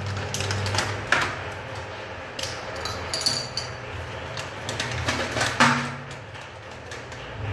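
Injection supplies being handled and set down on a bathroom countertop: a run of irregular clicks and knocks, with a brief glassy clink about three seconds in and the sharpest knock about three-quarters of the way through.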